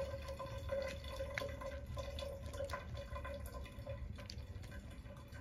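Soapy water being stirred by hand in a plastic basin, with small irregular splashes and drips.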